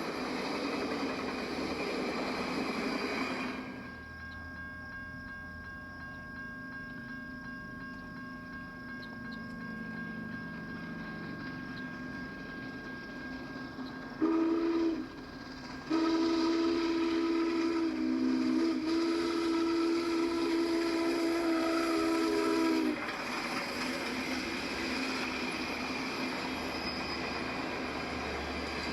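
Moving train rumbling along the track, then a train horn sounding a short blast about halfway through and, after a brief pause, a long blast of about seven seconds whose tone dips briefly partway through, before the rumble returns.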